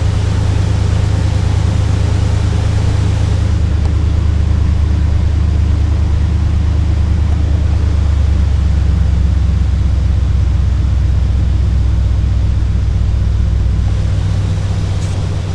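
Oldsmobile 307 V8 engine idling steadily, a low even hum, easing off slightly near the end.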